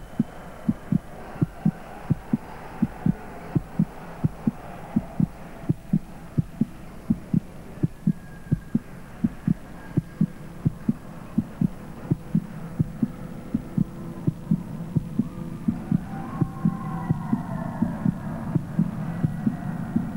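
An end-credits soundtrack of steady low thumps, about two and a half a second, with faint held and sliding tones above them. The bed swells slightly toward the end.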